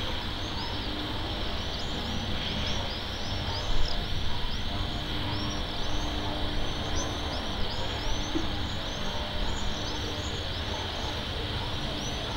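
Small birds chirping over and over in short, high calls, over a steady low rumble and a constant high hiss.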